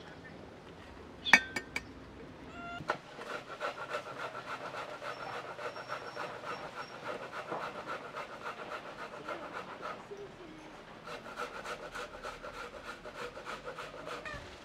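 Knife cutting an onion on a metal tray in quick, even strokes, about five a second, with a short lull partway through. A single sharp crack just over a second in.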